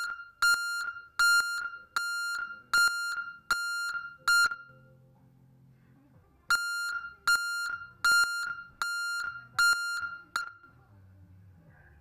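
A newly installed truck backup alarm sounding on test: sharp, high-pitched beeps a little under a second apart, seven in a row, a pause of about two seconds, then six more before it stops. The alarm is working properly.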